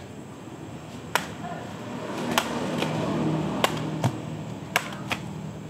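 A long knife forged from a motorbike sprocket chopping through a banana stem: a series of sharp cutting strikes, about seven, spread over several seconds.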